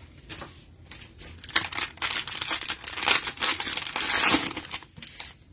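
Cellophane wrapper of a Mosaic football cello pack being crinkled and torn open by hand. It starts about a second and a half in as a dense, crackly rustle that runs on until shortly before the end.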